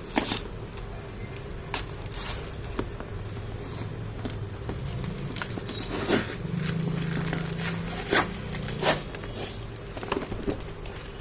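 Shipping packaging being handled and torn open: irregular crinkling and rustling with several sharp snaps and clicks.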